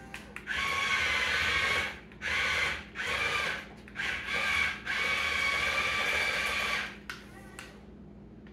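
Small electric gear motors of a Yepers remote-controlled toy excavator whining in five runs of between half a second and two seconds, stopping and starting as the toy turns on its tracks and swings its upper body round.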